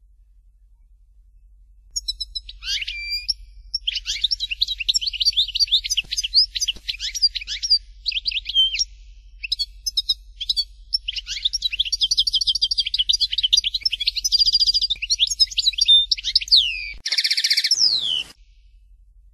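European goldfinch singing: a long run of fast, high twittering and trilled phrases starting about two seconds in, with a harsh buzzy note near the end before the song stops.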